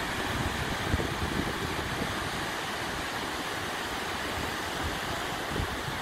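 Steady wash of ocean surf breaking on a sandy beach, with wind gusting on the microphone.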